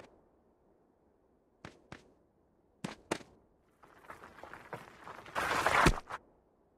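Cartoon sound effects: two pairs of light, sharp footstep-like taps, then a rushing swish that builds for a couple of seconds into a loud whoosh and ends in a low thud.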